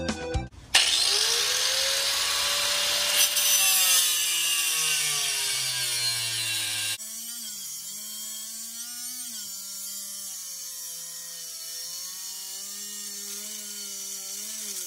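Power tool cutting, loud, with a whine that rises and then sags in pitch as it bites. About halfway through, an abrupt cut to a quieter machine whine that wavers up and down in pitch.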